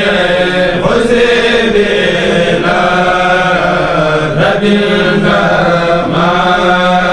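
A Mouride kourel, a group of men's voices, chanting a khassida together in unison with no instruments, on long held notes over a steady low tone, the melody changing pitch about once a second.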